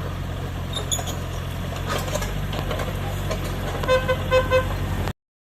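Yanmar YB1200SS mini excavator's diesel engine running steadily, with three short beeps close together near the end.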